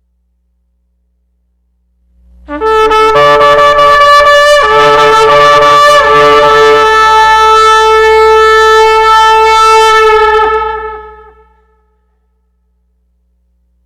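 A shofar (ram's horn) sounds one long blast of about eight seconds, starting two and a half seconds in. It wavers in pitch at first, then holds a steady note and fades out.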